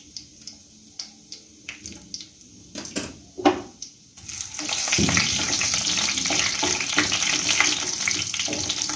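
Whole cumin seeds and chopped dried red chillies frying in hot oil in a kadai, stirred with a wooden spatula. Faint scattered sputtering pops, a sharp knock about three and a half seconds in, then from about four seconds on a loud, steady sizzle.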